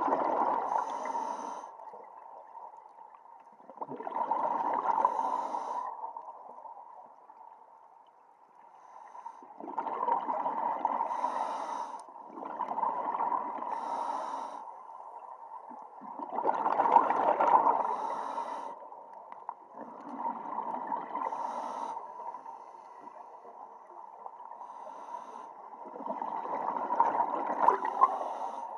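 Scuba diver breathing through a regulator underwater: a surge of breath and bubbles every few seconds, each lasting about two seconds.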